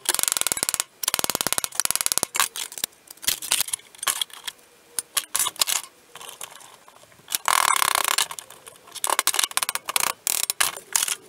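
Ball-pein hammer beating the edge of a steel repair panel against a steel bench, in fast runs of sharp metallic blows broken by short pauses: the edge is being stretched to lengthen the return and curve the panel.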